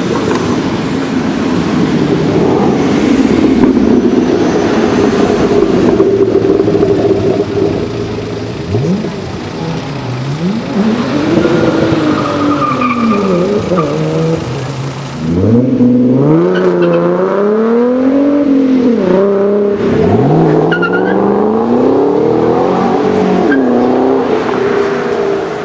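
Ford Mustang Shelby GT500s' supercharged V8 engines running loud as the cars pull away. From about eight seconds in comes a series of throttle blips, the exhaust note rising and falling roughly every two seconds.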